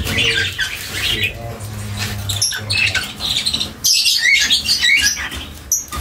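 A flock of caged lovebirds and budgerigars chattering, a busy mix of short, high squawks and chirps that is loudest about four to five seconds in.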